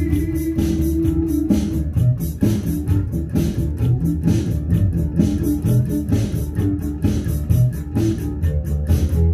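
Instrumental passage of a rock song: an electric bass playing a moving line over drums and guitar with a steady beat.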